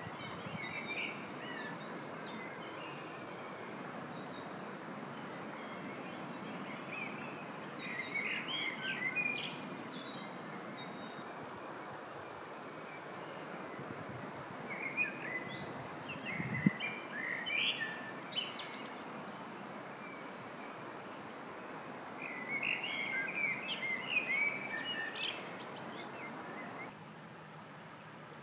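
Shallow stream running steadily over stones, with songbirds singing in several bursts of chirps. A single soft thump sounds just past halfway.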